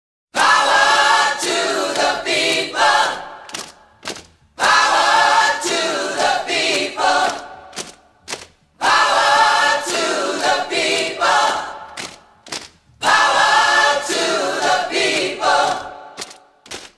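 Choral singing in four phrases of about four seconds each, each starting strong and fading away.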